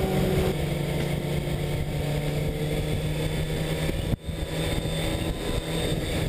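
Sport bike engine running at a fairly steady pitch, heard from the bike itself. The sound breaks off sharply about four seconds in, where the footage cuts to another ride, then the engine sound resumes.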